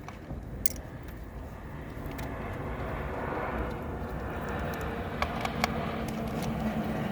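A motor vehicle's rumble growing louder and holding steady, with a low hum in the later part. A few light clicks sound over it, once about a second in and twice near the end.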